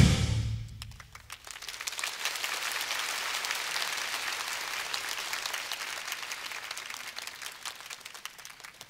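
The dance music ends and its last hit rings out in the hall, then an audience applauds, the clapping thinning and fading away near the end.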